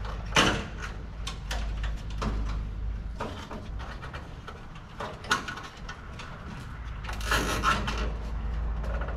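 Scattered clicks, taps and short rasps of plastic and metal being handled as a pickup's grille insert is fastened in with zip ties, with a sharp tick about half a second in and a cluster of rasps near the end.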